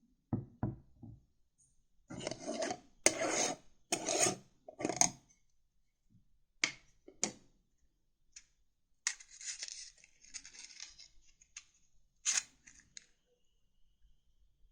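Tarot cards being handled and shuffled: a series of papery rustles and scrapes, some about a second long, broken by sharp clicks and pauses.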